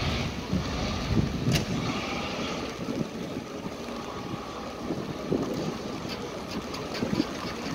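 Diesel locomotive at the head of a passenger train running its engine up to pull away: a steady low rumble, with a few sharp knocks, the loudest about a second and a half in.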